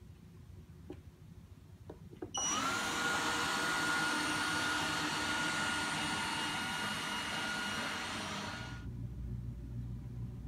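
Bobi Pet robot vacuum's suction fan starting up about two seconds in with a quick rising whine, then running with a steady high whine over a loud hiss. It cuts off suddenly near the end, leaving only a low hum. A few faint clicks come before it starts.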